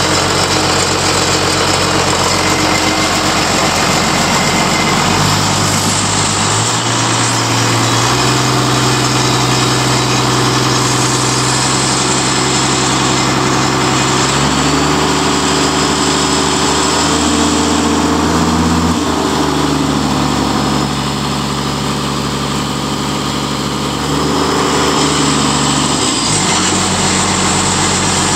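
Daewoo turbocharged diesel engine running. Its speed is raised in steps several times, about 5, 8, 14 and 17 seconds in, then let down near 19 seconds, with a short rise and fall again near the end.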